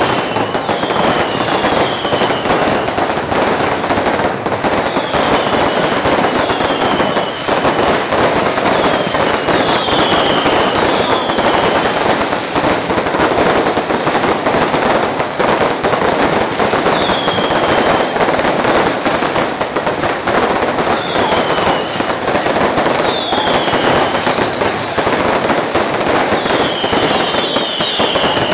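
Fireworks and firecrackers going off at close range: a dense, continuous crackling and popping, with short falling whistles every few seconds.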